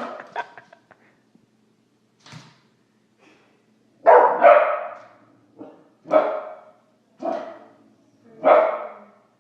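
A dog barking in short single barks: a few at the start, a lone one a couple of seconds in, then a run of louder barks about a second apart from about four seconds in.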